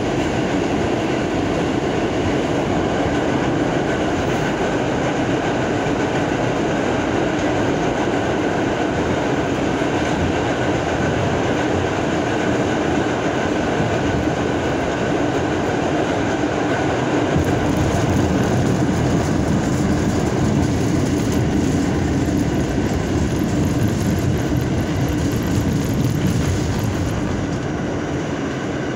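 R46 subway car running at speed through a tunnel: a steady, loud rumble of wheels on rail and running gear, with a little clickety-clack. It grows somewhat louder and harsher about halfway through and drops a little near the end as the train enters a station.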